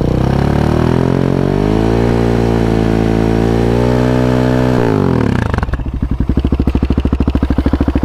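Husqvarna 701 Supermoto's single-cylinder engine, breathing through a Wings exhaust with no baffle and an open airbox, revved up for about two seconds, held steady at high revs, then dropped back to idle about five seconds in. It is loud, and the owner thinks the exhaust packing is dead.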